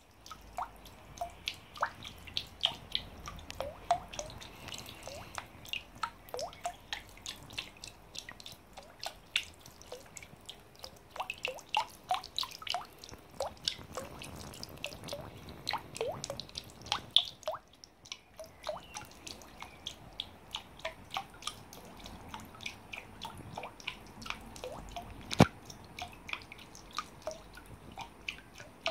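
Water dripping and splashing from the cups of a homemade garden water wheel into a plastic trough of water below: an irregular patter of plinks and plops, several a second, over a faint trickle. There is one sharper click late on.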